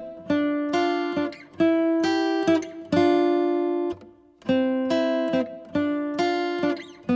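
Background music of plucked string notes and chords, each struck sharply and fading, with a brief break about four seconds in.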